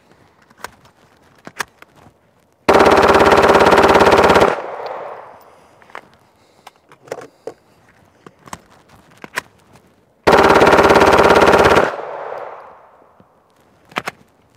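Full-auto Gen 3 Glock 17 fitted with an auto sear, firing two long bursts of about two seconds and a second and a half, each followed by a fading echo, with light clicks between them. The pistol is hot from sustained fire and running on a metal guide rod after its polymer one melted.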